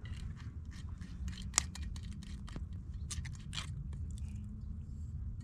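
Small knife cutting through a vegetable held in the hand: irregular crisp snicks and crunches, the sharpest about a second and a half in, over a steady low rumble.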